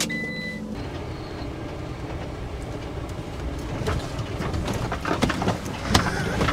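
Ram ProMaster van driving on a dirt road, heard from inside the cab: a steady rumble of tyres and engine with a few knocks and rattles from the rough surface. A short steady tone sounds at the very start.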